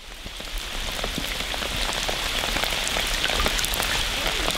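Steady rain falling on the surface of a slow forest river: a dense hiss of drops with many small, distinct splashes. It swells up over the first second.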